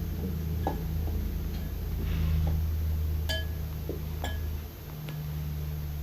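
A few light clinks of hard objects knocking together, about three, over a steady low hum.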